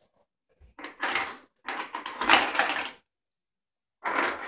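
Rustling and handling noise of clothing and packaging being moved on a table: a short rustle about a second in, then a longer one that stops abruptly about three seconds in.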